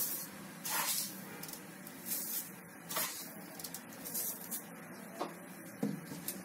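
Sugar being scooped and sprinkled by the spoonful, several short gritty rustles about a second apart, over a steady hiss.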